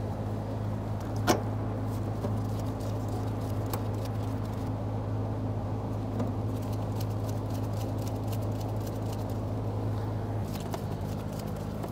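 Steady low background hum with a few light clicks of a screwdriver and screws against the sheet-metal fuel pump access plate, one sharper click about a second in, as the retaining screws are started by hand.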